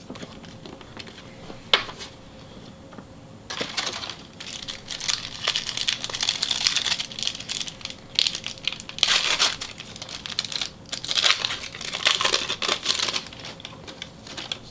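A trading-card pack wrapper crinkling and tearing as it is handled and torn open, after a quiet start with a single click about two seconds in.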